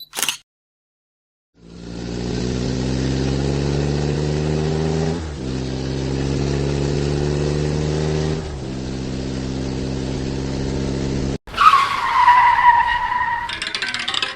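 Car sound effect: an engine accelerating through three gears, its note rising slowly in each and dropping at each shift, then a loud tire squeal that falls in pitch near the end.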